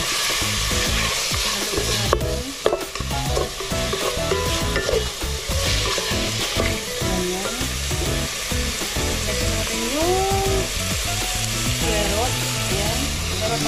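Chicken strips with chopped garlic and onion sizzling as they are sautéed in an aluminium pot and stirred with a wooden spatula. Two sharp knocks come about two seconds in.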